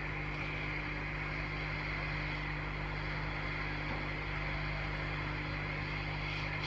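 Steady background hiss with a constant low electrical hum, unchanging throughout.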